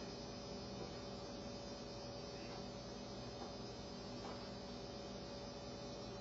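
Steady faint electrical hum, one constant tone, with a few soft faint taps in the middle.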